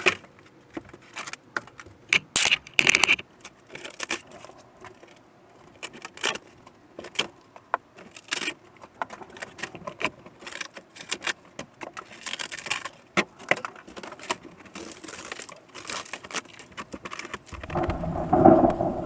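RV ceiling board and insulation being pulled down and torn from the roof frame: irregular crackling, scraping and rattling of debris, with a louder burst near the end.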